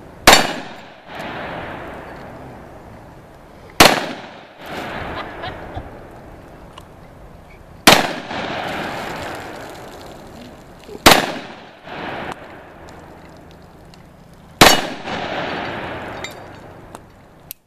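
Five single handgun shots, spaced about three to four seconds apart. Each is followed by a ringing clang from a steel target plate that fades over a couple of seconds.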